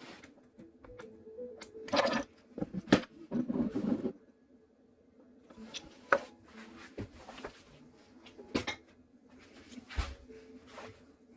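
Irregular clicks, taps and knocks of small hard objects being handled, clustered about two to four seconds in and scattered after, over a faint steady hum.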